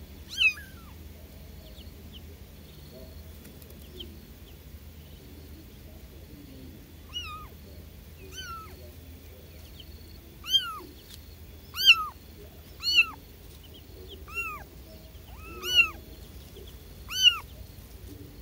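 Young kittens mewing: short, high-pitched calls that rise and fall, about nine in all, one right at the start and then a run of them roughly one every second or so from about seven seconds in. The kittens are calling for their mother.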